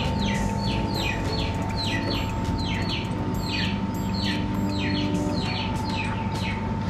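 A bird calling over and over, a short falling chirp about twice a second, over a steady hum and a thin steady tone.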